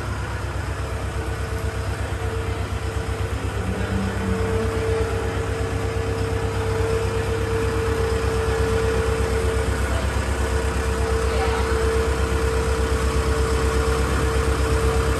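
Forklift engine running steadily, with an evenly pulsing low drone and a steady whine over it. It grows slowly louder.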